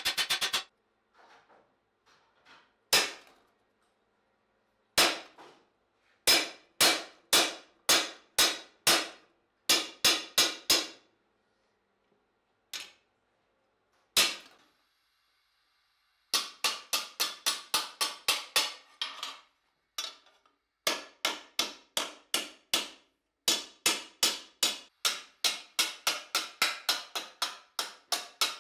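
Hammer blows on a steel armour visor plate held on a stake anvil: sharp metallic strikes with a short ring, in runs of about two to four blows a second separated by pauses, with only a couple of lone strikes in a quieter stretch midway. Near the end the plate being struck is red-hot.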